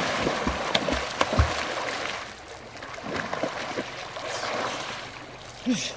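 A person swimming, arm strokes splashing the water. The splashing is heavy at first and drops off about two seconds in, leaving lighter, scattered splashes.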